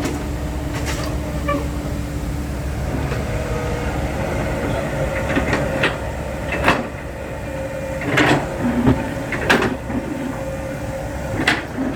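Six-wheel dump truck running with a steady low rumble as it drives over rutted dirt and sand, with several sharp clanks and knocks through the second half.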